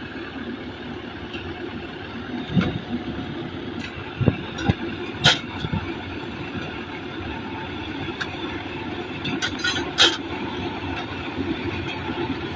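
Heavy engine or machinery running steadily, with several sharp knocks or clanks about two and a half to five seconds in and again near ten seconds.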